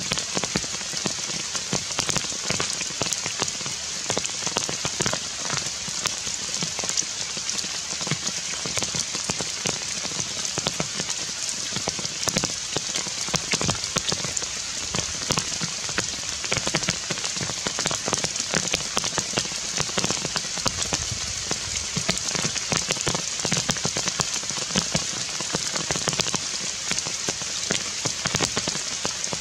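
Heavy rain falling steadily on forest foliage, a dense patter of countless small drop impacts.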